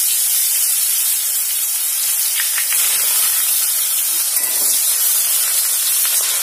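Hot oil in a metal kadai sizzling hard around freshly added wet shredded vegetables, a steady loud hiss.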